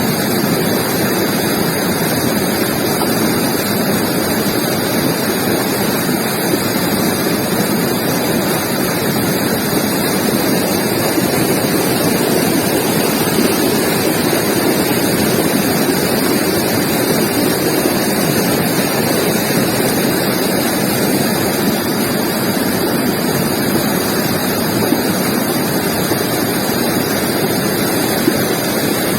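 River water flowing and rushing over rocks, a steady, loud rush that does not change.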